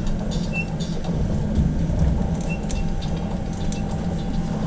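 Cabin sound of a moving BKM 321 trolleybus: a steady low hum and road rumble, with light rattles scattered through.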